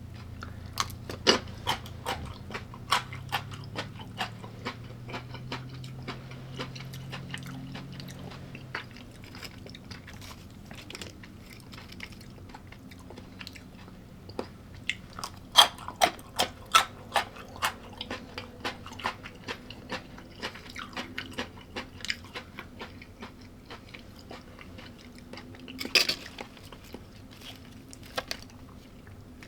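A person biting and chewing crunchy food close to the microphone: bursts of sharp crunches with quieter chewing between, the loudest runs a few seconds in, about halfway through, and once more near the end.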